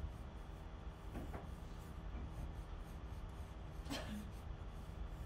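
Pencil sketching on paper: a few light scratchy strokes, the clearest about four seconds in, over a steady low hum.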